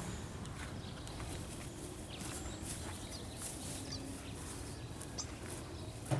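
Quiet outdoor paddock ambience: a low steady rumble, with a few faint high bird chirps and a short thump near the end.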